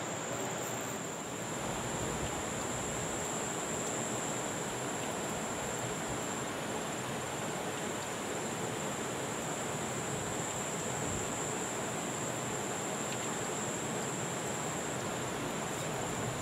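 Steady rush of a flowing river with a continuous high-pitched insect drone over it.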